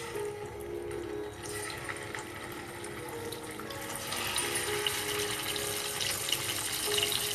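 Hot oil sizzling in a frying pan as whole boiled eggs are dropped in to fry, with small crackles; the sizzle builds and grows louder about four seconds in as more eggs go in.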